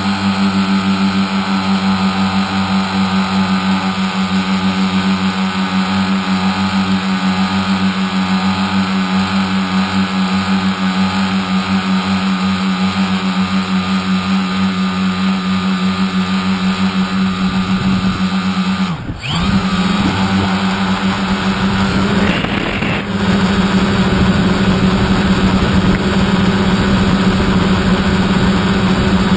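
Tricopter's three 1000kv brushless motors spinning 9047 propellers, heard from the onboard GoPro as a steady hum over a rushing hiss. About 19 s in the pitch drops sharply and climbs back. Around 22–23 s there is another brief change, after which the hum runs a little louder.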